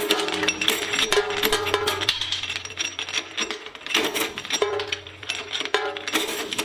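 Industrial shredder crunching through hard material, with many sharp cracks and clinks over a steady mechanical drone, mixed with music.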